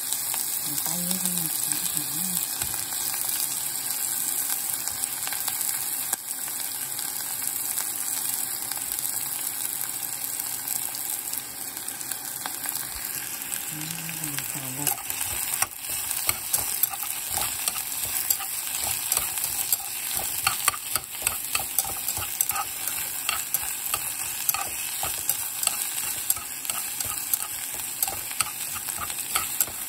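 Sliced onions sizzling in hot oil in a stone-coated nonstick pan. About halfway through, a utensil starts stirring them, with frequent sharp clicks against the pan over the steady sizzle.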